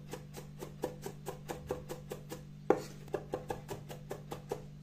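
Chef's knife mincing garlic on a wooden cutting board: quick, even taps of the blade on the board, about five a second, with a short break and one louder knock partway through.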